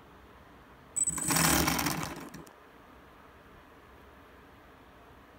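3D-printed brushless outrunner motor, driven by an RC electronic speed controller, spinning up about a second in with a high whine at the start, then running down and going quiet within about a second and a half. A second spin-up starts right at the end. The stop-start running is what the builder takes for the speed controller cutting out.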